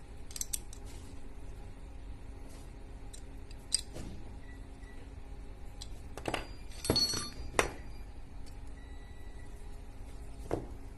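Scattered metal clicks and clinks from handling an aluminium camera disassembly jig and endoscopy camera-head parts, with a quick cluster of knocks a little past the middle and a single click near the end, over a steady low hum.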